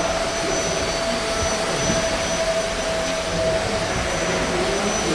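Steady background noise of a busy trade-fair hall: an even hiss with a constant hum-like tone running through it, and faint indistinct voices.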